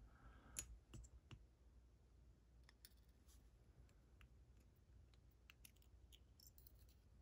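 Faint, scattered small metallic clicks as the pins and springs of a Yardeni dimple lock are pulled out of its cylinder one by one, a few sharper clicks in the first second and a half, then sparser faint ticks.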